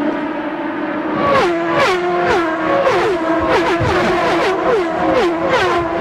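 A pack of open-wheel IndyCar race engines at high revs passing one after another, each car's note dropping in pitch as it goes by. It starts as one steady engine note, and about a second and a half in the cars begin passing in quick succession.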